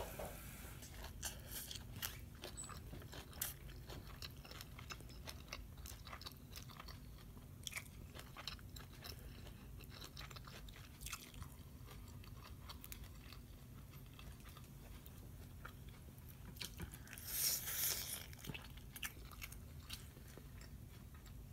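Close-up chewing of a mouthful of Lao spicy long bean salad with sticky rice: irregular crisp crunches and wet mouth clicks, with one louder burst near the end.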